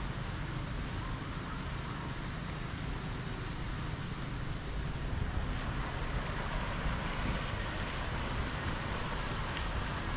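Steady outdoor background noise of distant city traffic: a low rumble under an even hiss, a little fuller from about halfway through.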